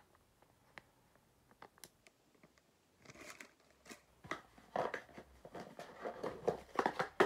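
Clear plastic jewellery packets crinkling and rustling as they are handled: a few small clicks at first, then denser crinkling from about three seconds in.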